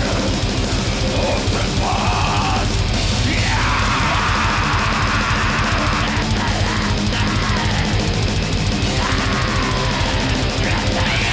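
Live black metal band playing: heavily distorted guitars over fast, dense drumming, one continuous loud wall of sound.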